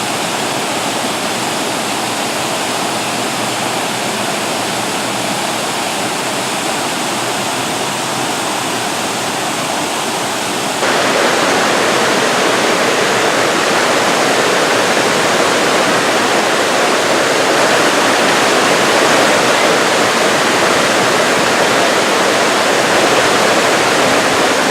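Waterfall rushing steadily, running much fuller than usual. The rush jumps louder suddenly about 11 seconds in, then stays steady.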